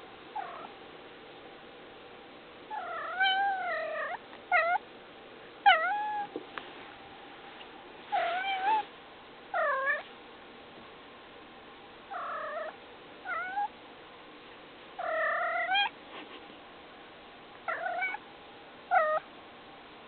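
Domestic cat meowing over and over, about a dozen calls with short pauses between, some brief and some drawn out to about a second, each bending up and down in pitch.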